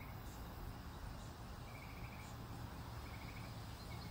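Quiet outdoor ambience: a steady low background rumble with three or four short, evenly pulsed trills of about half a second each, all at the same pitch.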